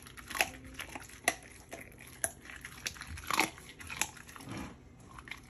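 A pit bull chewing raw food, with sharp, irregular cracks about once a second as her teeth work through it.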